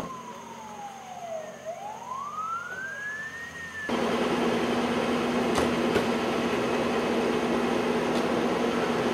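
Emergency vehicle siren wailing in one slow sweep, falling in pitch and then rising again, cut off abruptly about four seconds in. A louder steady drone with a constant low hum follows.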